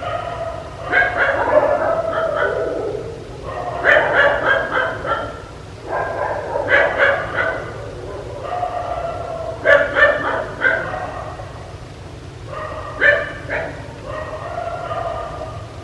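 A dog barking in repeated bursts of several quick barks, a new burst every two to three seconds.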